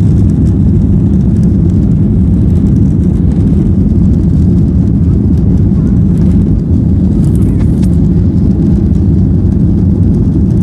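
Boeing 737-800's CFM56-7B turbofan engines at takeoff thrust during the takeoff roll, heard inside the cabin near the tail as a loud, steady low rumble.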